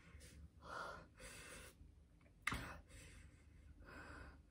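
A woman breathing hard through her mouth in short, noisy breaths and gasps against the burn of a very hot chili chip. A brief sharp click comes about two and a half seconds in.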